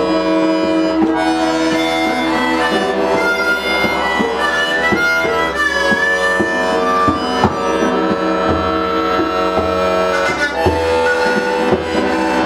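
A small squeezebox (free-reed accordion-type instrument) playing a melody over held chords, with lower bass notes coming in during the second half and a few short sharp knocks among the notes.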